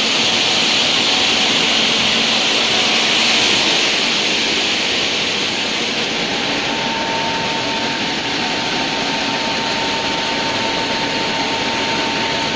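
Multi-blade bridge block-cutting saw running through a stone block, its large circular diamond blades grinding with water pouring over the cut: a loud, steady rushing noise that eases slightly about four seconds in, with a faint steady whine coming in around halfway.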